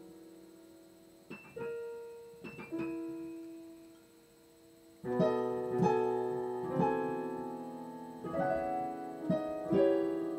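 Solo piano playing a slow passage. A few soft single notes come at first, then from about halfway a series of loud chords, struck roughly once a second and each left to ring and fade.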